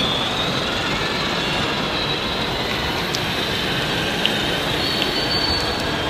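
Large 1/8-scale RC Liebherr mobile crane driving, its drive making a steady high whine over a dense, even rumble.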